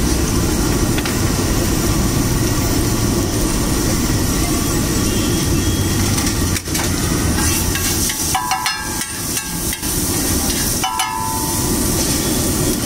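Chopped green chillies, onion and boiled eggs sizzling in oil on a large street-stall tawa, over a loud, steady low rumble. About eight seconds in the rumble drops away and a metal spatula knocks and scrapes on the tawa, breaking up the eggs.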